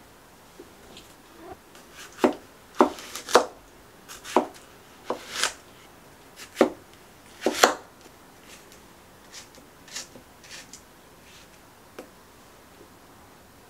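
Kitchen knife cutting a muskmelon on a wooden cutting board: a dozen or so separate strokes through rind and flesh, each ending in a knock on the board. The strokes are loudest and closest together in the first half and fainter later, as wedges are cut into cubes.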